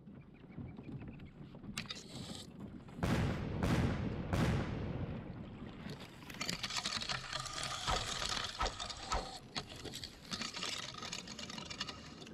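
Water sloshing around a Hobie Pro Angler kayak's hull as it pushes into tule reeds, with reed stems brushing and crackling against the boat. There is a loud rushing splash about three seconds in.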